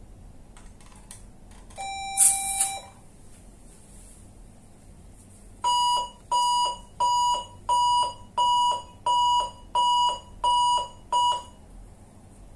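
400-watt electrosurgical unit in monopolar cut mode. About two seconds in, a one-second activation tone sounds together with the crackling sizzle of the electrode cutting into meat. From about six seconds in comes a run of about nine evenly spaced beeps, roughly one and a half a second, from the unit's alarm.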